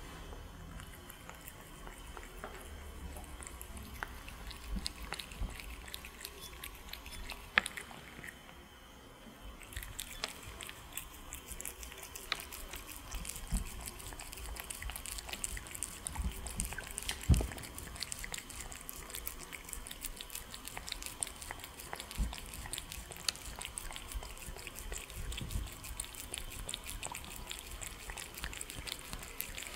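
Two cats eating sushi rolls at close range: wet smacking, licking and many small sharp clicks of chewing, busier after about ten seconds. One louder knock about seventeen seconds in.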